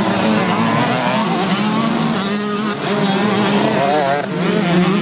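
Motocross bike engine revving up and down hard as the rider works the throttle through the track, with the pitch rising and falling every second or so and more bikes running behind it.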